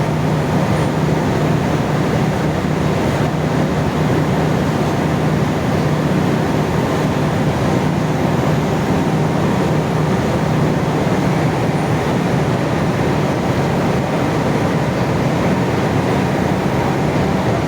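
Loud, steady industrial machinery noise with a constant low hum and no change in level.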